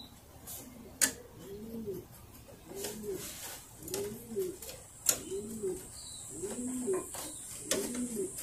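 A pigeon or dove cooing over and over, one rising-and-falling coo about every second, seven in all. A few sharp clicks and taps cut in, the loudest about one and five seconds in.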